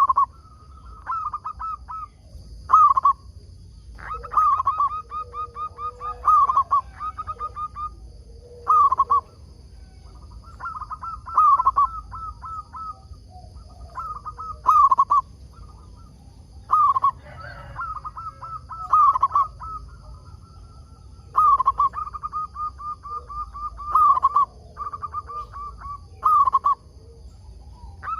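Zebra dove (perkutut) cooing over and over, each phrase a strong opening note followed by a quick run of short, even notes, repeating every two to three seconds.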